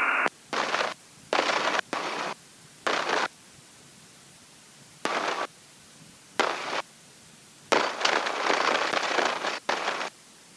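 Bursts of hiss on the aircraft's headset audio feed, about eight of them, each switched on and off abruptly as the intercom or radio squelch opens and closes, with near silence in between; the longest lasts over two seconds near the end.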